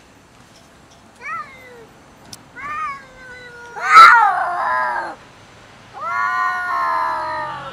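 Two stray cats yowling at each other in a standoff over food: two short rising-and-falling cries, a loud harsh cry about four seconds in that slides down in pitch, then a long drawn-out yowl near the end. These are warning calls of cats squaring up to fight over a food dish.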